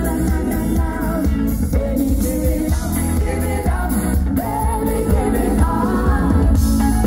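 Live pop band playing through PA speakers, with vocalists singing over a steady bass-and-drum beat.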